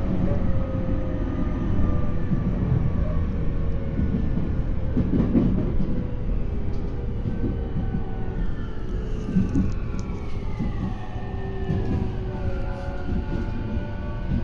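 E231-series electric train running, with a steady rumble from the wheels and track under its Hitachi IGBT inverter. In the second half the inverter's whine slides downward in several parallel tones, the falling 'crash' (墜落) sound this inverter is known for.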